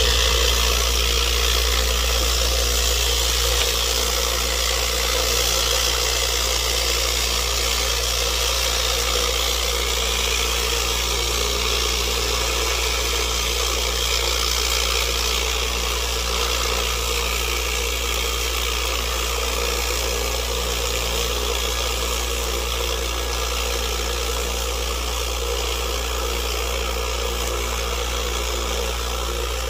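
Lot-O vibratory rock tumbler running on medium grit, its barrel loaded with Bahia agates, ceramic media and 120/220 silicon carbide: a loud steady low hum with a dense, even hiss of the load churning. It starts abruptly at the beginning.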